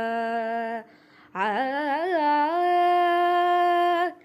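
A girl singing a Carnatic-style devotional song solo: a held note ends just under a second in, and after a short breath she begins a new phrase on a long 'aa', with a few quick turns before settling on a long steady note that stops near the end.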